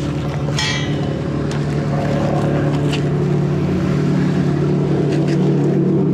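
An engine running steadily at a constant speed, with a few light knocks and a short scrape over it.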